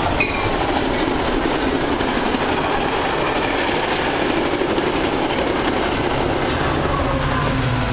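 A Metra commuter train running past at speed without stopping, with a steady loud rush of wheels on rails. A deeper low hum comes in near the end.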